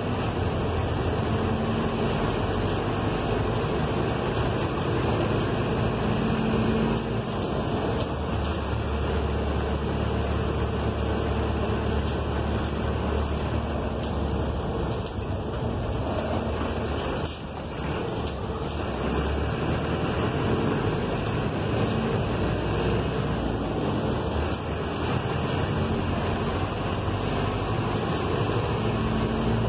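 City bus driving, heard from inside the cabin near the driver: steady engine rumble and road noise, with a short dip in level a little past halfway.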